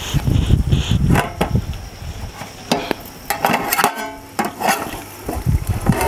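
Metal ladle clanking and scraping against an aluminium cooking pot as the chicken is stirred, with the pot's metal lid clattering and ringing, in a string of sharp clanks. Wind rumbles on the microphone in the first second or so.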